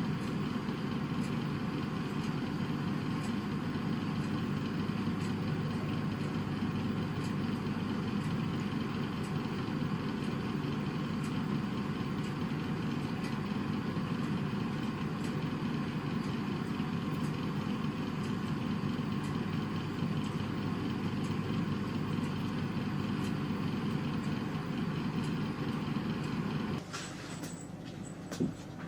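Steady low mechanical rumble, like a machine or engine running, that cuts off suddenly near the end, followed by a single short click.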